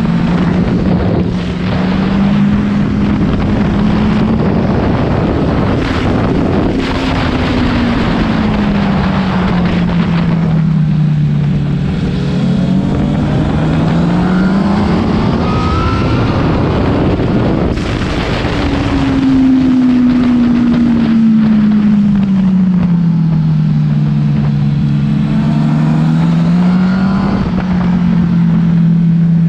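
Honda CBR1000's inline-four engine running under way, its pitch rising and falling slowly with throttle and road speed, with a jump up in pitch about two-thirds of the way through, over a steady rush of wind noise.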